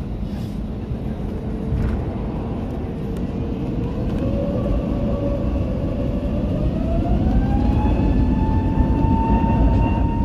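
Airbus A321neo's CFM LEAP-1A turbofan engines heard from inside the cabin, spooling up for the takeoff roll. The engine whine climbs in pitch from about four seconds in until about eight seconds in, then holds steady over a low rumble.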